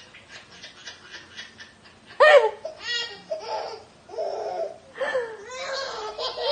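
Baby laughing: a quick run of giggles, then loud, sudden bursts of belly laughter from about two seconds in.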